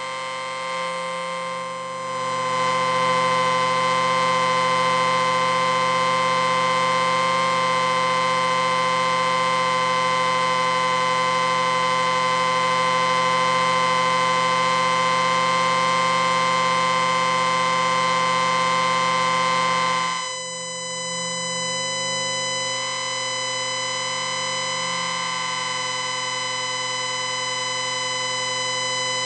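Synthesized science-fiction 'electric ring' sound effect: a long, steady electric ringing buzz made of many held tones at once. It swells louder about two seconds in, then near the twenty-second mark drops in level and thins out before building slightly again.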